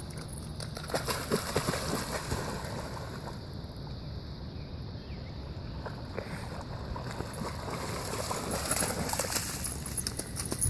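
A dog splashing through shallow creek water while fetching, in flurries of splashing about a second in and again toward the end.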